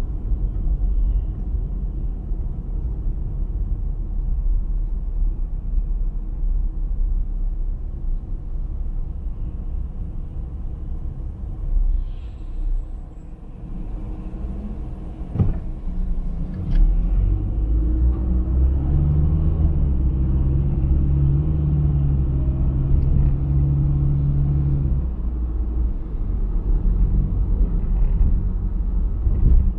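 A car driving, heard from inside the vehicle: a steady low rumble of road and engine noise. It dips briefly about halfway through, two sharp clicks follow, then a steadier low engine hum runs for several seconds before the plain rumble returns.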